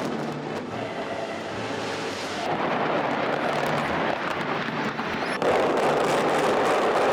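Rumbling roar of a hotel tower's implosion and collapse, with wind on the microphone. The sound changes abruptly about two and a half seconds in and again about five and a half seconds in, getting louder at the second change.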